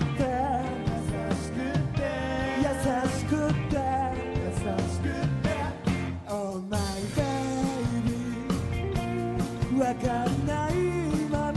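Live rock band: a man singing lead vocals over acoustic guitar, with electric guitar and a steady beat behind him. The music dips briefly about halfway through.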